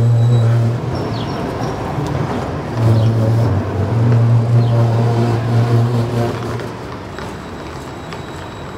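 Low-floor electric tram passing close by: a steady low electric hum from its running gear with a rumble of wheels on rail. The hum drops out for a moment about a second in, returns at about three seconds, and dies away after six seconds as the tram moves off.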